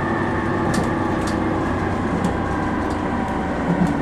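Cabin noise inside a JR Shikoku 2000 series diesel tilting railcar: a steady hum of its diesel engines and the running train, with a few faint high ticks.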